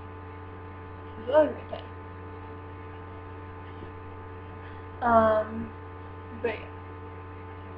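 Steady low electrical mains hum, with a few short vocal sounds from a girl, about a second and a half in and again about five seconds in.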